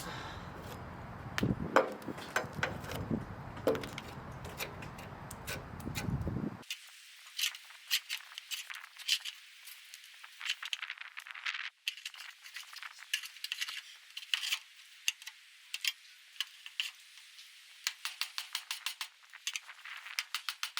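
Metal hand tool scraping and chipping stuck tarboard insulation off a VW Beetle's steel chassis: rapid irregular scrapes, clicks and clinks. About six and a half seconds in the sound turns thin, its low end gone.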